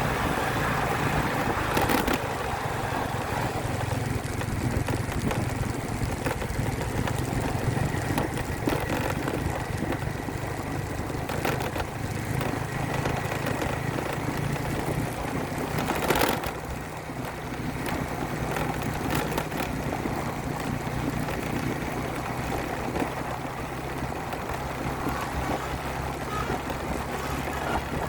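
A motor vehicle's engine running steadily with road noise, broken by a few short knocks and rattles, the loudest about sixteen seconds in.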